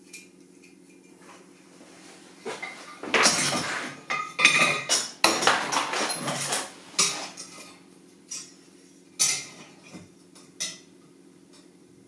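Metal hand tools clinking and clattering against each other on a workbench as they are rummaged through and picked up: a dense run of clatter for a few seconds, then four or five separate clinks. A faint steady hum runs underneath.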